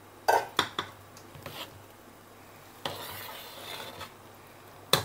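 Steel spoon stirring rice flour and hot water in a metal pressure cooker pot, clinking and scraping against the pot's side and bottom. Three sharp clinks come in the first second, a longer scrape about three seconds in, and one more sharp clink near the end.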